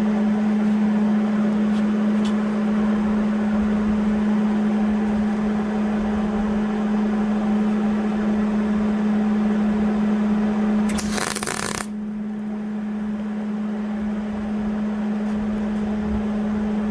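Wire-feed welder arc crackling steadily over a constant hum while re-welding a cracked joystick ball shaft, with a brief louder, hissing burst about eleven seconds in.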